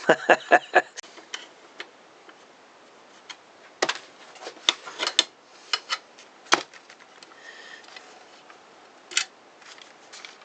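Clicks and taps of tools and saw parts being handled on a bench: a quick run of sharp clicks at the start, then scattered single taps and clicks.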